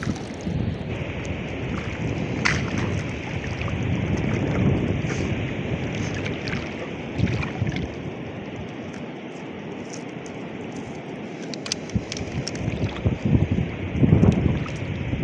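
Wind buffeting the microphone in an uneven rumble, over small splashes and drips of water as a fish is worked free of a wet gill net in shallow water.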